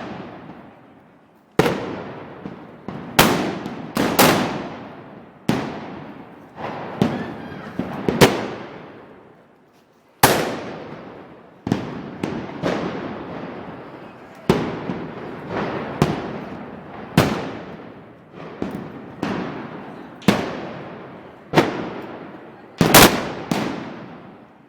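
Black-powder blunderbuss (arcabuz) shots fired one after another in an arcabucería. There are about twenty sharp bangs at uneven spacing, roughly one a second, each trailing off in a long echo.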